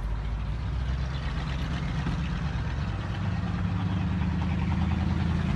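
A motor vehicle engine idling, a steady low rumble that grows slowly louder.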